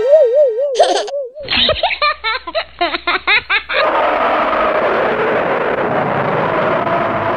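A wobbling, warbling cartoon-style tone, then a rapid run of comic laughter sound effect with quick swooping 'ha's. From about four seconds in it gives way to the steady noise of a passenger train running past.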